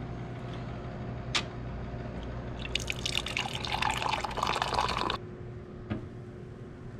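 Hot coffee pouring from a Curtis dispenser's tap into a ceramic mug for about two and a half seconds, then stopping abruptly. It plays over a steady low hum, with a sharp click about a second in.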